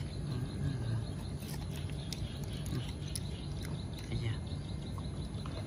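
Dog gnawing on a bone, with scattered short crunching clicks, over a steady low hum and a few faint bird chirps.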